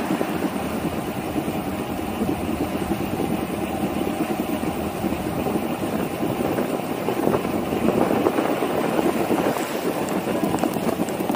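Steady rushing noise of riding along on a bicycle, wind and road together, growing a little louder in the second half, with a few light clicks near the end.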